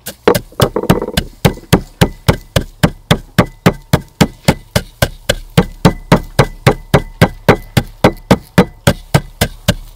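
Wooden pestle pounding dry grains in a mortar: steady, sharp knocks at about four strokes a second.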